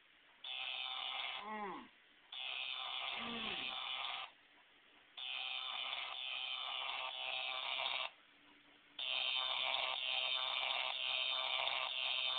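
Shocking Duel shock-game toy sounding its electronic buzzing countdown from its small speaker, in four on-off bursts of one to four seconds each, the longest near the end, before it delivers its shock.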